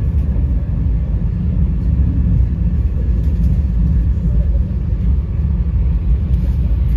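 Vande Bharat Express electric multiple-unit train running along the track, a steady low rumble of wheels and running gear.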